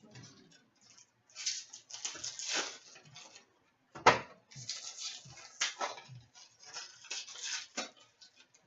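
Sports card packaging being handled: irregular crinkling and rustling of wrappers and cardboard, with one sharp knock about four seconds in, the loudest sound.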